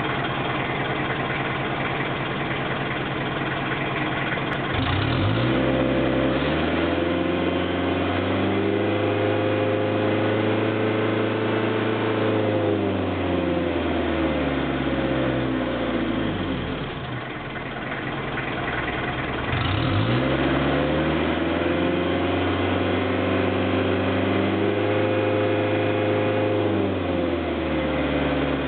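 1996 Mitsubishi L200 diesel engine at the tailpipe, idling and then revved up twice. Each time the revs climb over a couple of seconds, are held for several seconds and drop back to idle; the second rev-up begins about two-thirds of the way through.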